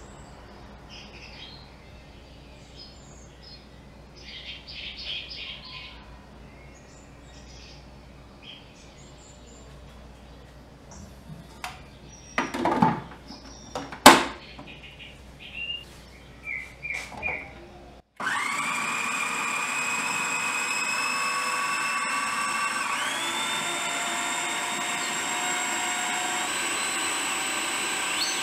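Faint bird chirps over a low hum, then a few loud plastic clicks and knocks as the food processor's lid and feed tube are fitted. About two-thirds of the way through, the food processor's motor starts suddenly and runs steadily with a whine that shifts pitch a couple of times as it blends soaked bread into a paste.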